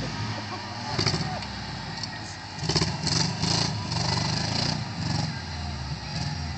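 Subaru station wagon's flat-four engine revving unevenly as it drives over loose gravel, heard from a distance, with a few short bursts of hiss about three seconds in.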